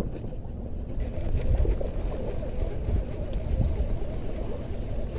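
Wind buffeting the action camera's microphone: a steady, heavy low rumble.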